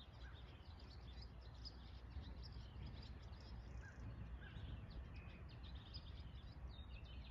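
Faint birdsong: several small birds giving short, scattered chirps over a low steady rumble of outdoor background noise.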